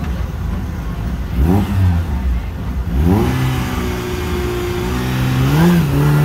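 Peugeot 106 rally car's engine on the start line: a short blip of the throttle about a second and a half in, then revs climbing about three seconds in and held steady and high, ready for the launch, with a small extra rise near the end.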